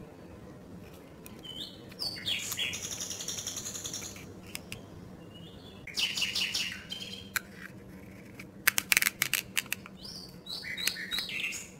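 Cardboard 3D-puzzle pieces squeaking, creaking and clicking as they are handled and pressed together. There is a rattling squeak about two seconds in, another at about six seconds, and a burst of sharp clicks around nine seconds.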